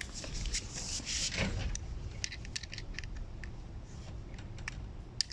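Scattered clicks and light plastic rattles of an electric car polisher being handled, with a short rustle about a second in, over a low steady background hum.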